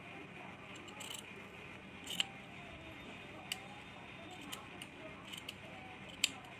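Large steel tailor's shears cutting through a thin piece of fabric, a series of short, sharp snips at irregular spacing, roughly one a second. The sharpest snips come about two seconds in and near the end.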